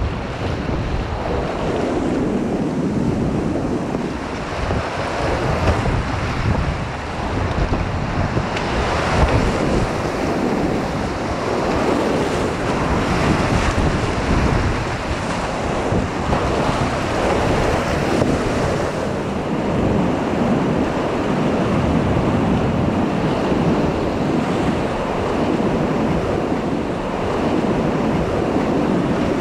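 Whitewater rapids rushing loudly and steadily around a kayak, heard close to the water surface, with spray splashing over the camera.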